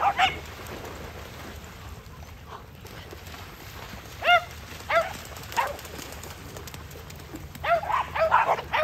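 Dogs barking in short, high yips: one near the start, a few spaced barks in the middle, then a quick flurry near the end, over the steady wash of dogs splashing through shallow water.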